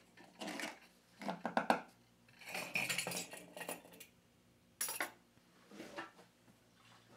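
The screw cap of a riding mower's plastic fuel tank being twisted off, amid a series of rattling, clinking handling noises. A sharp knock comes just before the fifth second, then a smaller one.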